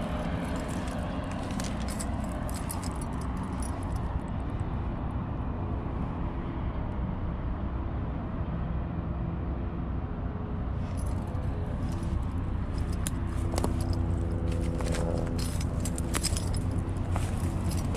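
Steady low rumble of road traffic with faint engine or tyre tones. Scattered light clicks and jingles come in the first few seconds and again in the second half.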